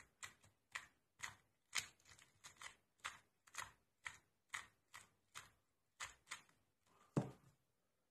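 Faint plastic clicks of a 2x2 Rubik's cube being turned layer by layer while an algorithm is executed, about two turns a second, with a duller, louder knock near the end.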